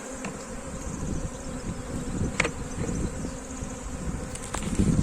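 Honeybees buzzing in numbers around a flour feed. The buzzing is steady, with a couple of faint clicks.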